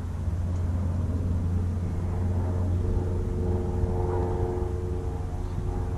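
Low wind rumble on an outdoor microphone. About two and a half seconds in, a steady drone from a distant engine joins it.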